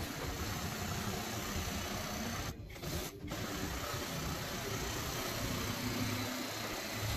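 Carpet-cleaning extraction machine running: a steady rushing hiss over a low hum, briefly dropping out twice near the middle.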